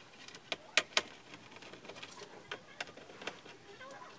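Irregular light clicks and taps from opening up an LED TV's display panel, with the strongest two close together about a second in.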